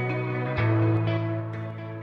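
Soft instrumental background music of slow, sustained notes, with a new note struck about half a second in and the sound fading toward the end.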